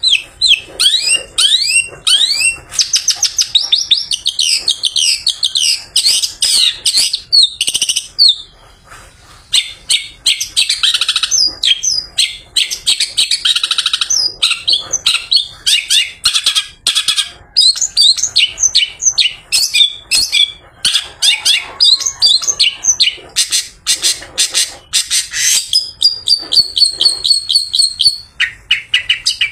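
Long-tailed shrike (pentet/cendet) singing a fast, unbroken chatter of rapid chirps and rising whistles, with a brief pause about nine seconds in.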